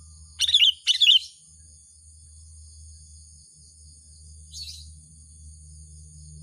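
Sooty-headed bulbul (kutilang) calling: two loud, short chirpy calls about half a second apart near the start, then a fainter call about four and a half seconds in.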